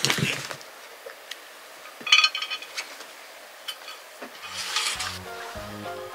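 A cat pouncing at a wire cat-dancer toy, paws scuffling on a rug, with a quick scuffle right at the start, a short bright clink about two seconds in, and another rustle a little before the end.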